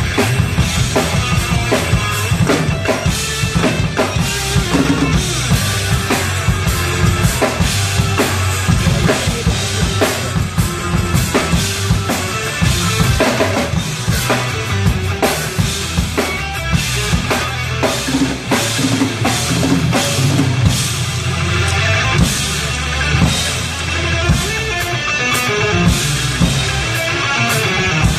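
Drum kit played fast and busy, with bass drum and snare hits thick throughout, over a progressive-metal instrumental backing of guitar and keyboards.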